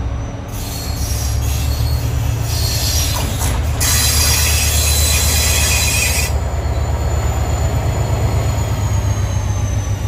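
Irish Rail class 071 diesel locomotive running past close by, its EMD two-stroke V12 engine giving a heavy steady rumble. A loud high-pitched wheel squeal rides over it from just after the start until about six seconds in, then stops sharply while the engine sound carries on.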